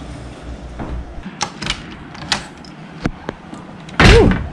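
A wooden, glass-paned door being worked: a few sharp clicks from its handle and latch, then a loud knock as it swings open about four seconds in, with a short squeak.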